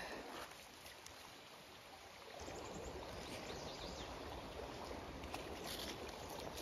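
Shallow river flowing over a stony bed: a steady, faint rushing, with a few faint clicks over it.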